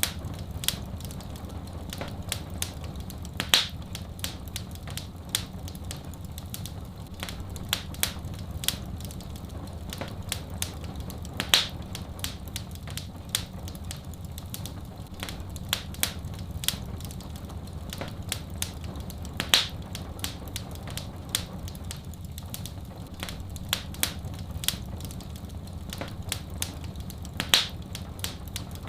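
Wood fire in a fireplace crackling, with many small sharp pops and a louder snap about every eight seconds, over a steady low rumble.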